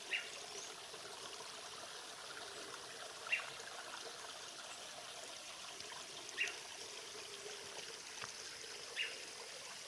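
A stream running steadily. Over it, an animal gives a short falling call four times, about every three seconds.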